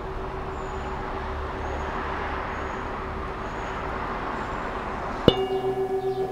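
Steady rushing background noise with a faint held tone; about five seconds in, a metal singing bowl is struck once and rings on with a pulsing, wavering tone.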